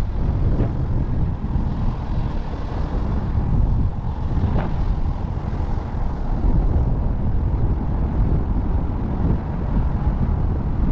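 Wind buffeting a microphone moving at road speed, over a steady low rumble from the vehicle carrying it.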